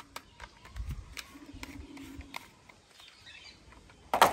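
Light plastic clicks and taps as a toy pistol with a screw-on silencer is handled, then a louder short clatter about four seconds in as it is laid down on the mat.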